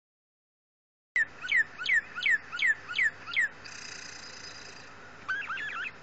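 Northern cardinal song played through computer speakers: starting about a second in, six loud, clear down-slurred whistles in quick succession, followed by a quieter steady hiss. Near the end comes a short burst of rising chirps from a parakeet tweeting back.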